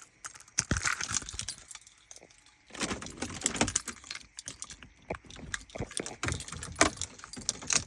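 Wiring connectors being handled and plugged into a Range Rover's replacement lighting control module (LCM): irregular clicks and rattles, with a short lull about two seconds in.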